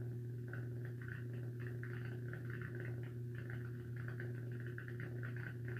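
A steady low electrical hum with an irregular, fluttering patter above it, like a small mains-powered appliance running.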